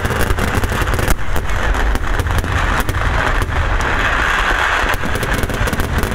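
A dense barrage of firework explosions: rapid bangs and crackles overlapping so closely that they merge into a continuous volley over a heavy low rumble.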